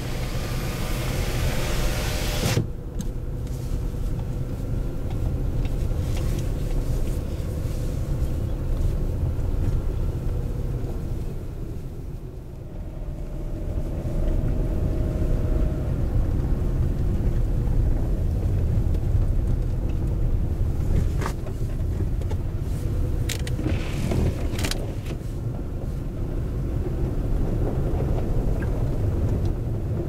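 Car driving on a snow-covered road, heard from inside the cabin: a steady low rumble of engine and tyres that eases briefly about twelve seconds in. A loud hiss fills the first two seconds or so and cuts off suddenly, and a few faint clicks come near the end.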